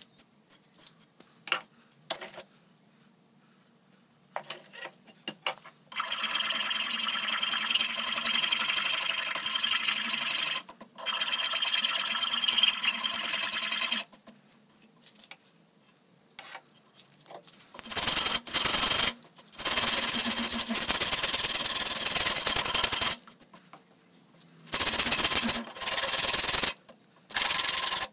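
Wooden cleaver handle being rubbed down by hand, likely with sandpaper, in long passes of a few seconds each with pauses between; the later passes are heavier.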